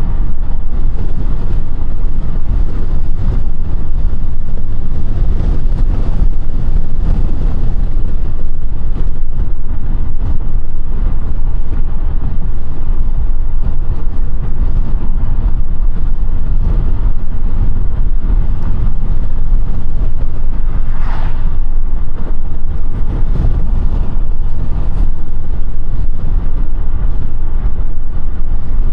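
Audi A5 (8T) driving along at a steady pace: a constant low rumble of road, tyre and engine noise, with one brief higher-pitched squeak a little past two-thirds of the way through.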